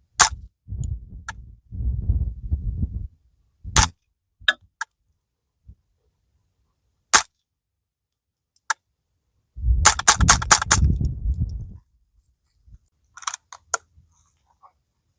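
Suppressed .22 LR rifle shots through a B&T rimfire silencer: single cracks a few seconds apart, then a quick string of about six near the middle. Wind buffets the microphone between them.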